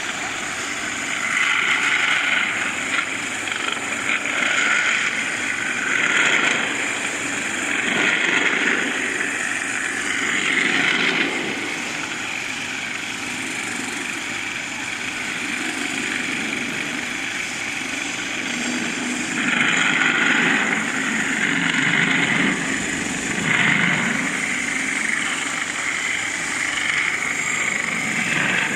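Industrial floor grinder running with its industrial vacuum cleaner attached, a steady machine noise with a constant high whine. It grows louder and harsher in stretches lasting a few seconds, several times in the first ten seconds and again about two-thirds of the way through.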